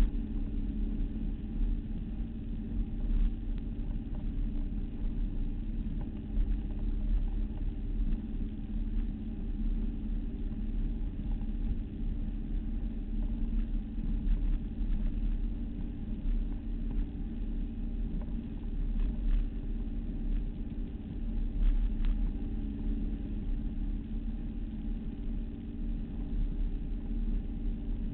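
Motorboat engine running steadily at cruising speed, with water churning and rushing along the hull.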